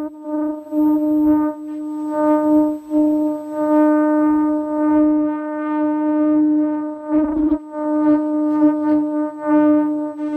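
Ultrasonic sealing and cutting machine running with a steady, pitched hum as non-woven fabric is fed through it by hand. A short rough, noisy stretch comes about seven seconds in.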